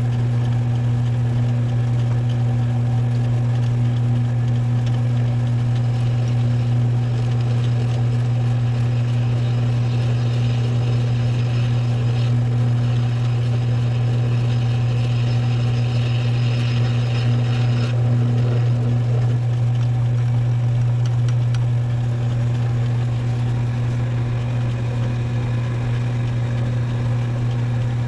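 Metal lathe running with a steady motor hum while a parting blade deepens O-ring grooves in the part. A brighter hiss joins for several seconds in the middle.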